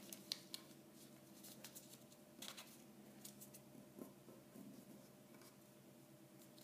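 Faint rustling and creasing of folded paper as fingers press and smooth origami folds, with a few light crackles scattered through.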